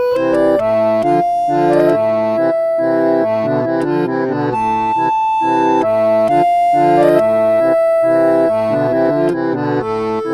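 Instrumental background music: a melody of long held notes over chords played in a steady, regular rhythm.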